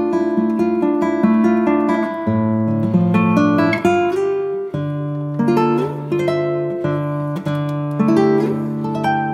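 Background music: acoustic guitar strummed and picked, with chords changing about every second.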